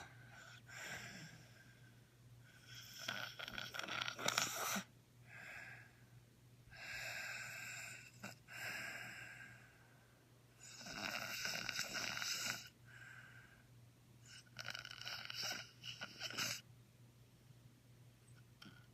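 Snoring: a run of long, noisy in-and-out breaths, each a second or two long, with short quiet gaps between them.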